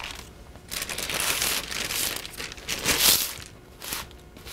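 Parchment paper rustling and crinkling as it is pulled off a freshly baked loaf of bread, in uneven swells that are loudest about three seconds in.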